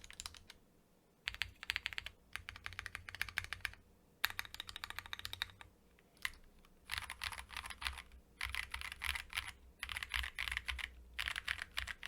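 Typing on a gasket-mounted Akko ACR Pro Alice Plus mechanical keyboard fitted with Akko CS Crystal switches. The keystrokes come in about six bursts of rapid clicking, each a second or two long, with short pauses between them.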